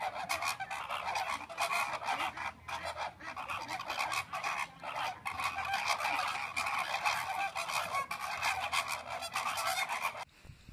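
A flock of flamingos honking and calling all at once, a dense continuous goose-like chatter of overlapping calls that cuts off suddenly about ten seconds in.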